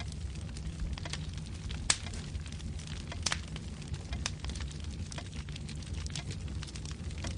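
Wood fire crackling in a fireplace: irregular sharp pops and snaps of burning logs over a steady low rumble of the flames, the loudest pop about two seconds in.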